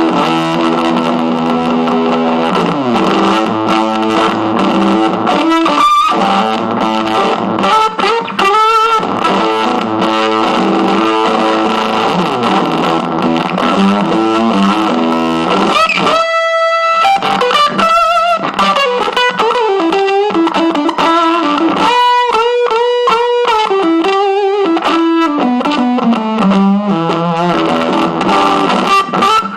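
Electric guitar played through a Fuzz Aldrin one-knob fuzz pedal, giving a distorted fuzz tone. It starts with held chords, then moves to single-note lines with a wavering held note about halfway through, followed by stepping runs that descend.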